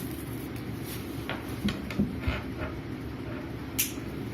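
Small plastic clicks and taps as an LR44 button cell is fitted into the battery housing of a Boya BY-M1 lavalier microphone, about five in all, the sharpest near the end, over a steady low hum.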